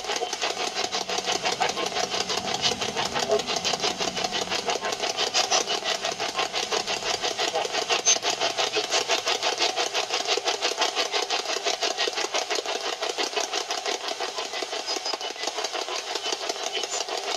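Spirit box (ghost box) sweeping through radio stations: a steady run of rapid, stuttering bursts of static and chopped broadcast fragments, which the investigators read as spirit words.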